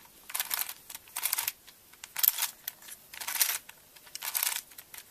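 Plastic Crazy 3x3x3 Plus Venus twisty-puzzle cube being turned face by face, each turn a short clicking rattle of the layers sliding, about one a second, as a sequence of moves is worked through.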